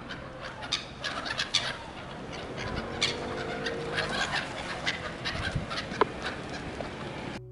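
A flock of gulls calling, many short calls overlapping irregularly.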